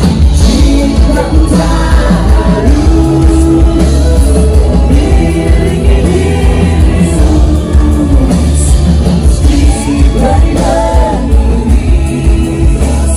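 Rock band playing loudly with a vocalist singing a held, gliding melody over a heavy low end.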